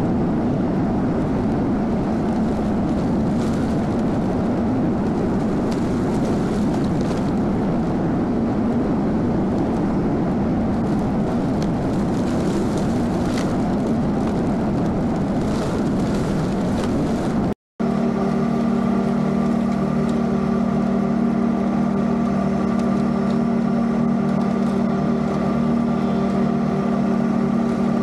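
Zero-turn riding mower's engine running steadily. It cuts out for an instant about two-thirds through, then comes back as a steadier, more even hum.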